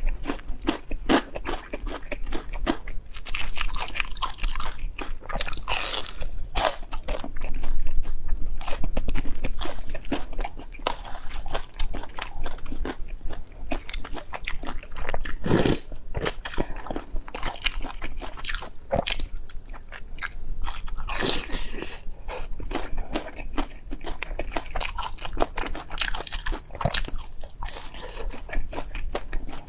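A person eating close to the microphone: repeated crunchy bites and wet chewing of a fried stuffed bun and wide noodles in chili broth, an irregular run of mouth sounds with no pauses.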